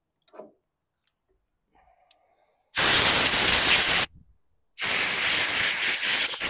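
Two loud bursts of pressurised spray hissing, each lasting about a second and a half, with a short pause between them.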